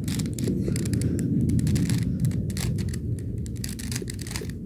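3x3 Rubik's cube being turned quickly by hand, the plastic layers clicking in a fast, irregular run, as the moves of an algorithm are done to put the last edge of the second layer in place.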